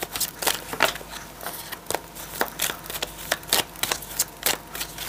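A deck of oracle cards being shuffled by hand, overhand: a run of short card slaps at an uneven pace, several a second.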